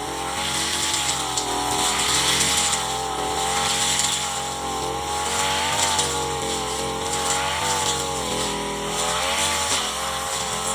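Brush cutter's small petrol engine running at high revs, its pitch rising and dipping continually as it cuts through grass.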